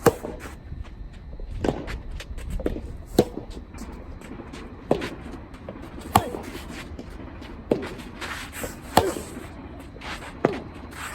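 Soft tennis rally: rackets hitting the hollow rubber ball back and forth, about eight sharp hits evenly spaced roughly a second and a half apart, each with a short ring. Strong wind rumbles on the microphone underneath.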